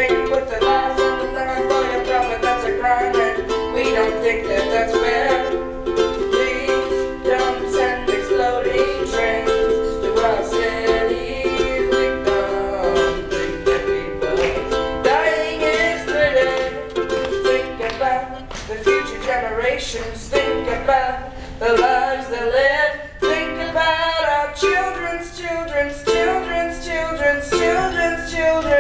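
Ukulele strummed in a steady rhythm, with a voice singing a song over it.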